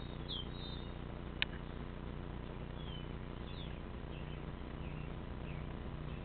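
Small birds chirping now and then: short, high, quick calls. One sharp click about a second and a half in, over a steady low outdoor hum.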